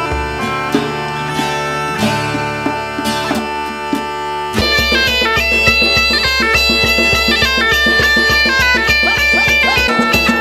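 Medieval folk music led by a bagpipe playing a melody over its drone, with a plucked string instrument. About four and a half seconds in the music changes abruptly to a livelier passage with a quick stepping melody and a steady drum beat.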